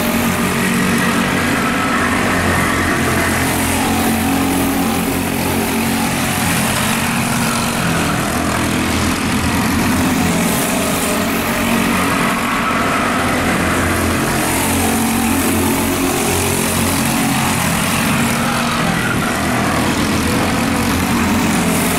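Racing go-kart engines running at speed, a steady drone that shifts a little in pitch as the karts go around the track.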